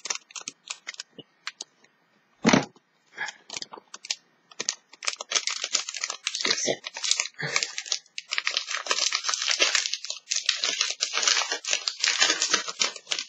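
Scissors snipping open a thin Pokémon card booster wrapper, with a single thump about two and a half seconds in. From about four and a half seconds the wrapper crinkles and rustles steadily as the cards are worked out of it.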